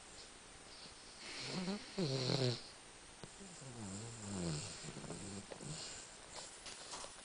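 Rhodesian Ridgeback snoring in its sleep: a louder snoring breath about a second in, then a second, wavering one around the middle.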